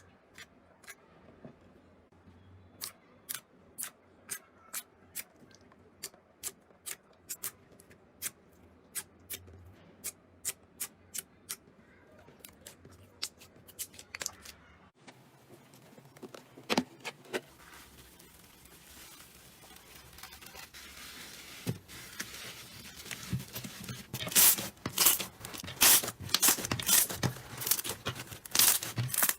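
Slime being squeezed and poked by hand, popping with sharp clicks, about two or three a second. About halfway through it cuts to another clip of slime, where denser crackling pops build and grow louder toward the end.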